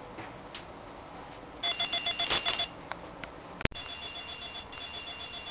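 Electronic ringer of a Panasonic KX-T3014 corded desk telephone ringing in a fast trilling warble for about a second. A sharp click follows, and then the ring goes on more quietly.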